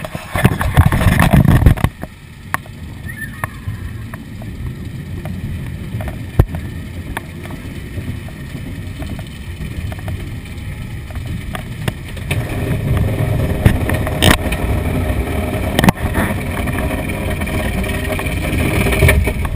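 Kiddie roller coaster car rolling along its track: a loud low rumble with scattered sharp clacks, loudest in the first two seconds and again over the last seven or so.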